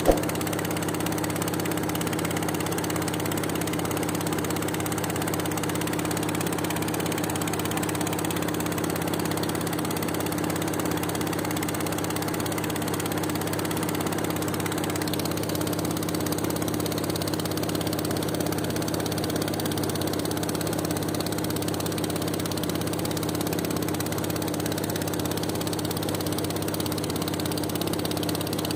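Wooden longboat's engine running at a steady speed, one unchanging drone, over the rushing hiss of the bow wave. There is one sharp click at the very start.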